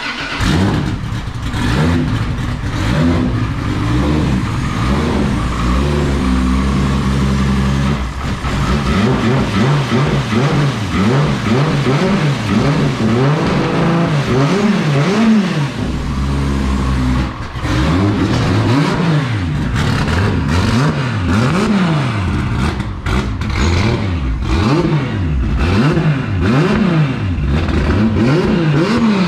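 Turbocharged 2JZ drift car engine running at a fast idle and being blipped through a hand-pulled throttle cable, its revs rising and falling over and over with short steady stretches in between, as it warms up after starting.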